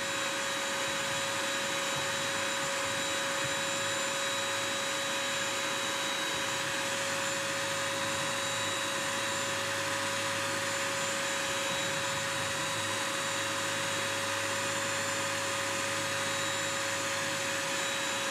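BISSELL Crosswave wet/dry vacuum running steadily with a constant motor whine, picking up pet hair from a hard floor.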